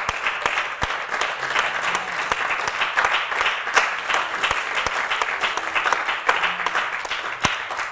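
Congregation applauding: a dense, steady clapping of many hands that tails off near the end.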